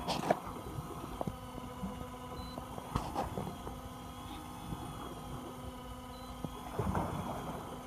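A steady motor hum made of several even tones, with a few faint clicks and knocks about three seconds in and near the end.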